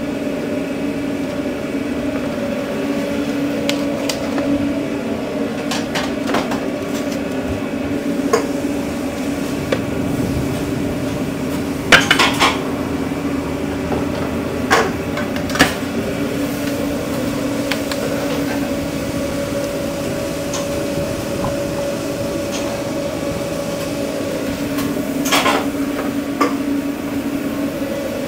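Metal utensil clanking and scraping against a cooking pan as fried rice is cooked, in irregular strikes with the loudest cluster about twelve seconds in, over a steady hum of kitchen equipment.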